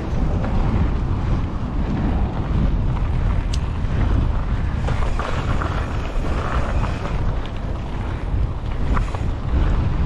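Wind rushing over the camera microphone on a moving mountain bike, over a steady low rumble from the bike rolling along the trail, with a couple of faint clicks.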